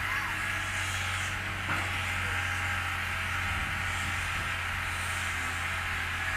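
Excavator diesel engine running steadily, with a brief click about two seconds in.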